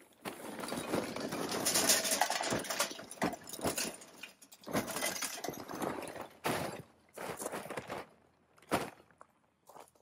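Hardwood lump charcoal poured from its bag into a metal chimney starter: chunks clattering and clinking against the metal and each other. One long pour over the first four seconds or so, then a few shorter rattles and a single sharp clink near the end.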